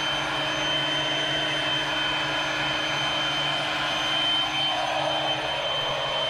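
Air compressor running steadily, a constant drone with a high whine, supplying air through a hose to a homemade smoke tester pushing smoke into an ATV snorkel for a leak test.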